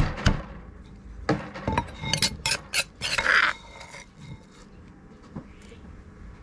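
A wooden pestle knocks a few times in a clay mortar. Then, about two seconds in, a metal spoon scrapes and clinks against the mortar as coarsely pounded shallots and chillies are scooped out.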